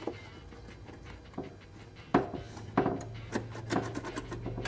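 Hands working a jammed seatbelt retractor and its trim: quiet handling at first, then a string of sharp plastic-and-metal clicks and knocks from about two seconds in, over a steady low hum.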